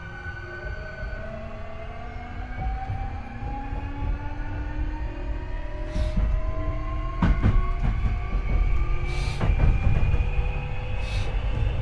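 Hankyu 8300 series train accelerating, heard from the car floor above the bogie: the Toyo IGBT-VVVF inverter and traction motors whine in several tones that climb steadily in pitch, over a growing rumble of wheels on rail. A few sharp wheel clicks over rail joints come in the second half.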